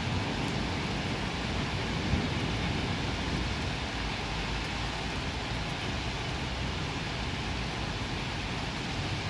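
Heavy rain falling in a steady hiss, with a low rumble underneath.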